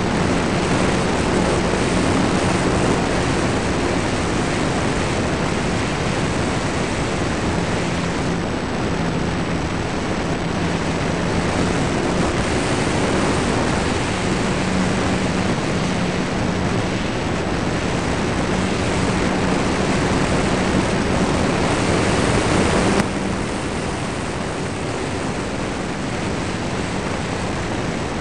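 Onboard sound of a ParkZone T-28 Trojan RC model plane in flight: the electric motor and propeller hum steadily, their pitch shifting a little, under heavy wind rush over the onboard microphone. The sound drops suddenly about 23 seconds in and stays lower.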